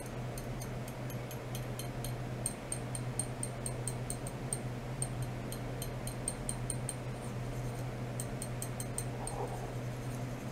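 Ultrasonic test rig of a stainless steel rod driven by a function generator: a steady low hum with irregular high-pitched ticks, several a second, coming in runs.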